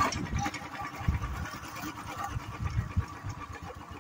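A small engine running steadily in the background, a faint even drone, with irregular low rumbles on the microphone over it.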